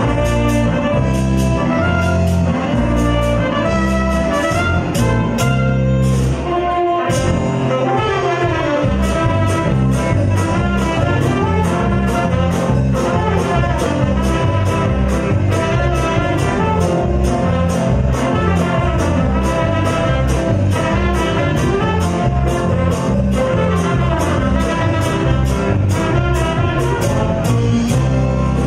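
Live band playing at full volume: saxophones carry held melody notes over keyboard, electric guitar, bass and drums, with a steady beat.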